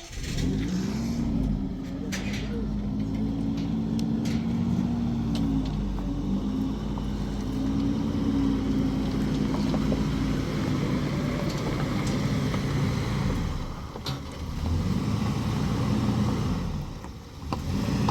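Vehicle engine pulling away and driving, its pitch rising and falling several times as it speeds up and changes gear.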